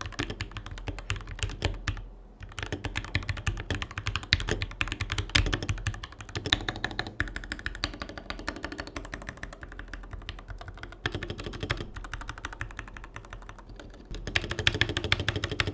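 Typing on a Pulsar PCMK 60 mechanical keyboard with Gateron Milky Yellow linear switches, in its stock, untreated build with factory silicone dampening: a steady, rapid run of key strokes with a short lull about two seconds in, growing faster and louder near the end.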